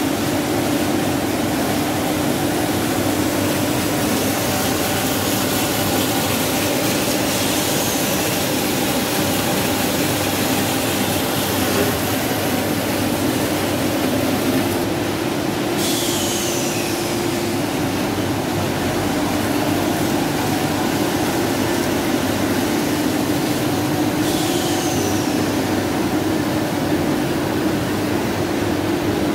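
OMET Multifilm 520 FP flexo printing press running, its web moving through the rollers: a steady mechanical din with a constant hum. A short falling whistle comes back about every eight seconds.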